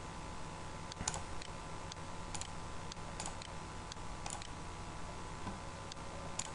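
Computer mouse clicks: about five single, sharp clicks a second or two apart over a steady faint hum.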